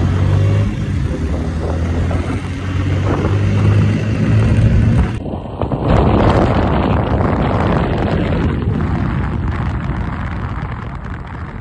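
Bajaj Pulsar N160 motorcycle engine running steadily on the move, with wind rushing over the microphone. About five seconds in, the sound changes abruptly to a louder rush of wind and road noise, with the engine note buried under it.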